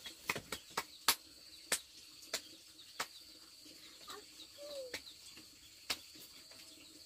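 Hands clapping in an uneven run of sharp claps, about seven in the first three seconds and one more near the end, over a steady high insect drone.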